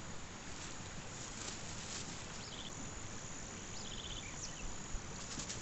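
Insect chirps: two short, rapidly pulsed high chirps, about two and a half and four seconds in, over a steady outdoor background hiss.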